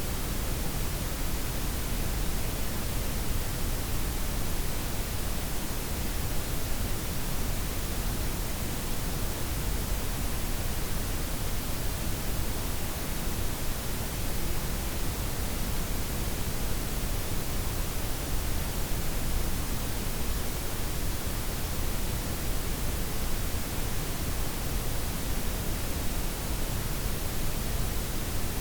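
A steady, unchanging blend of synthetic white, pink and brown noise with softened highs: an even hiss spread across all pitches, fullest in the low rumble, without events or rhythm.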